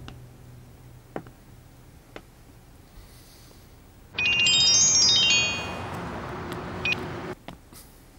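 Soundtrack underscore: a few faint sparse plucked notes, then a loud whooshing swell about four seconds in, with a descending cascade of high chime-like tones. The swell cuts off suddenly after about three seconds.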